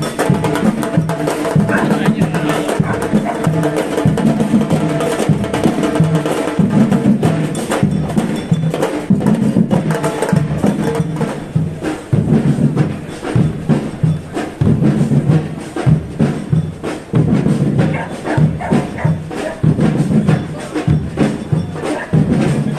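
Live music with busy percussion: sharp struck notes over a repeating low beat.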